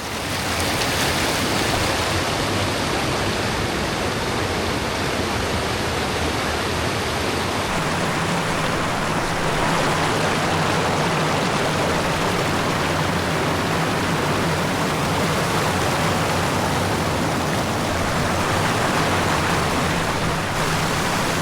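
Rain-swollen rocky creek rushing and splashing over stones, a steady loud rush of water.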